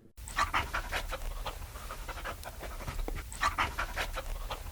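A dog panting, quick short breaths in and out in a steady rhythm.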